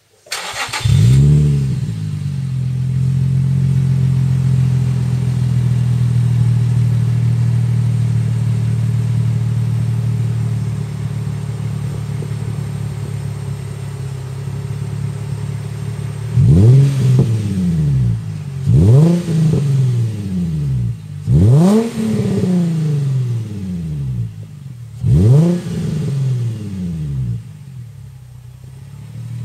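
Nissan Z33 Roadster's V6 exhaust through a 5ZIGEN Fireball muffler fitted with two flange-mount inner silencers. The engine starts with a short flare, idles high and then settles, and in the second half it is blipped four times, each rev rising sharply and falling straight back to idle.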